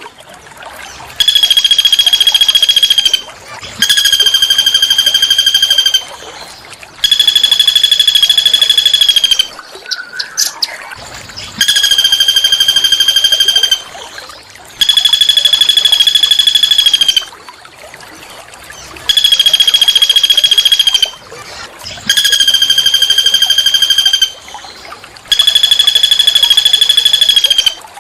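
A small songbird's harsh, buzzing trill, repeated eight times in even strings of about two seconds each with short pauses between, and a brief rising call in one of the pauses near the middle.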